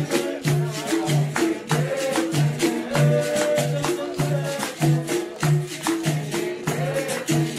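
Capoeira roda music: berimbau with its caxixi shaker rattling, a low note pulsing about twice a second, sharp percussion strokes, and voices singing.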